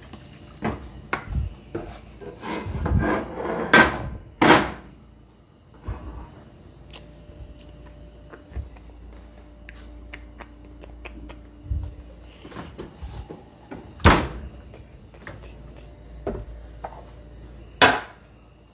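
Kitchen clatter as cookware is handled: a run of light taps and knocks with several sharp loud knocks, and a rougher scraping stretch a few seconds in.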